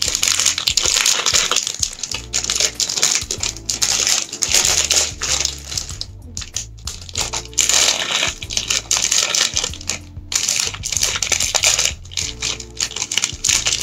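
Plastic instant-noodle packaging crinkling and rustling as it is torn open and handled, over background music with a low bass line.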